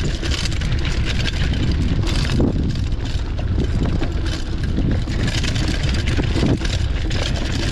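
Mountain bike descending a rocky trail: tyres crunching over loose stones and the bike rattling with many small knocks, over a steady low rush of wind on the microphone.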